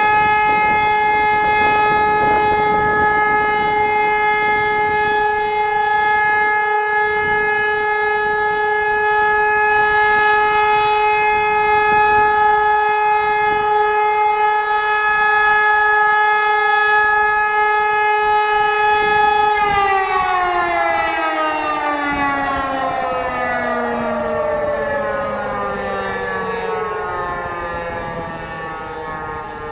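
E57 electromechanical civil-defence siren sounding a test alarm: it holds one steady tone, then about two-thirds of the way in it winds down, its pitch falling steadily as the rotor slows.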